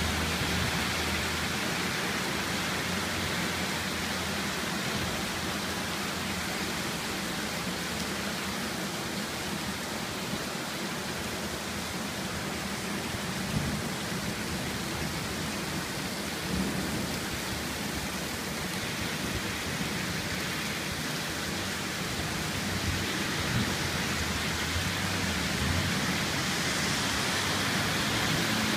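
Heavy rain falling steadily in a storm, a constant hiss, with the low end rising and falling in rumbles now and then.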